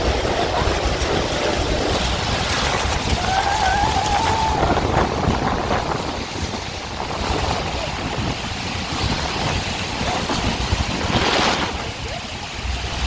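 Constant roar of Niagara Falls and the churning water at its foot, with wind and spray buffeting the microphone.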